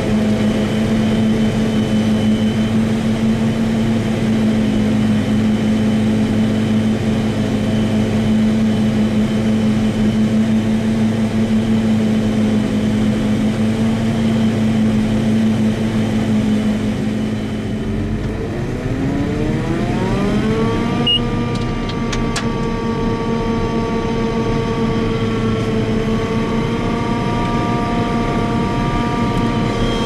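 Forage harvester chopping corn for silage, heard from inside the cab: a steady loud drone of engine and chopper with several whining tones. About two-thirds of the way through, the tones glide up in pitch over a few seconds and then hold steady, higher.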